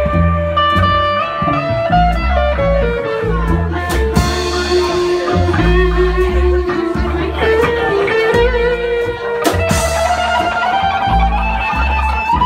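Live band music: a guitar carrying a melody that slides between notes, over upright bass and drums.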